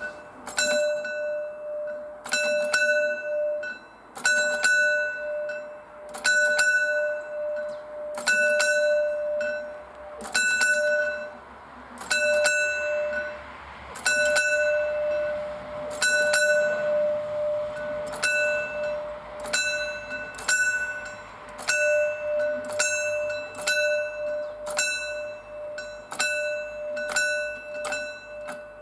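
Pre-warning bell of a mechanical level-crossing barrier, ringing single clangs that signal the barriers are about to come down. The strokes come about every two seconds, then quicken to about one a second in the last third.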